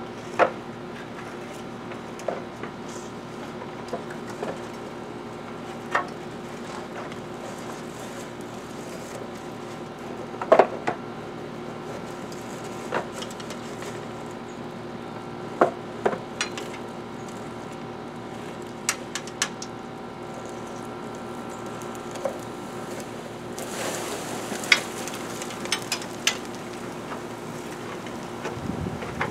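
Honeybee swarm humming steadily, with scattered sharp clicks and knocks, the loudest a cluster about ten and a half seconds in.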